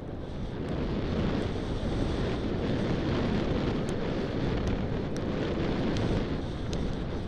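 Wind buffeting a helmet camera's microphone during a fast descent of a dirt trail, with a steady low rumble from the ride and a few small clicks and rattles.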